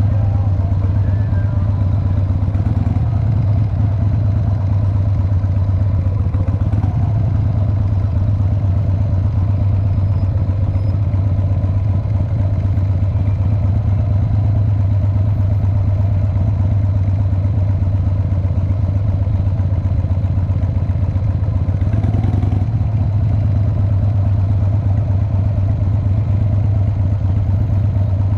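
Cruiser motorcycle engine running steadily at idle to low speed, a low even pulsing hum with no revving, as the bike creeps along in slow traffic.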